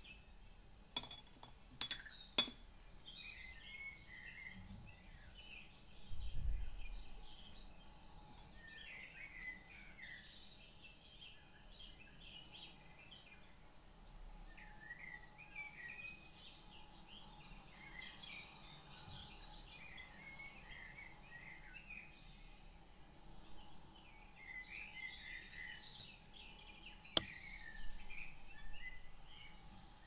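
Birds singing softly, a steady stream of short chirps, with a few sharp glassy clinks about two seconds in and one near the end.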